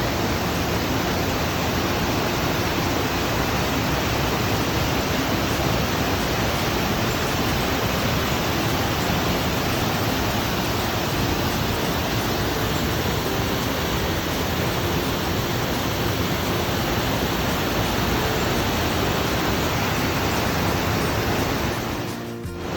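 Waterfall rushing, a steady even roar of falling water that dips briefly near the end.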